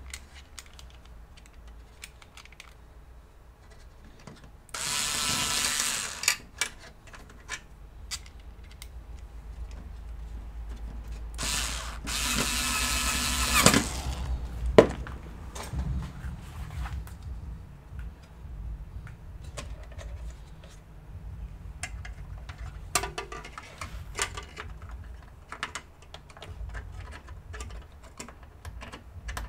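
Screwdriver work and handling while a graphics card is fitted and screwed into a PC case: scattered clicks and taps of screws and metal brackets. Two loud bursts of rasping tool noise come about five and twelve seconds in, the second one longer.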